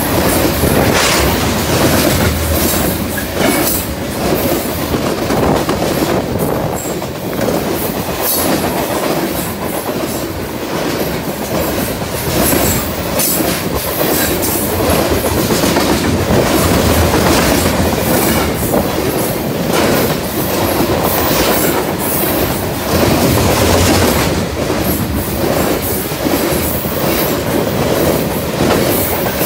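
Covered hopper cars of a BNSF freight train rolling past at close range: a steady rumble of wheels on rail, with frequent clacks as the wheels cross rail joints.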